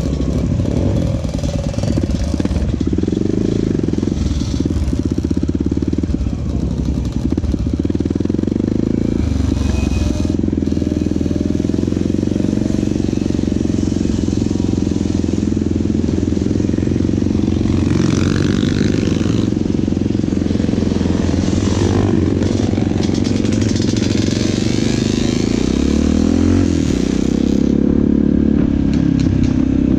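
Honda XR650 single-cylinder four-stroke dirt bike engine running under way. Its note rises and falls with the throttle as the bike pulls off and rides along.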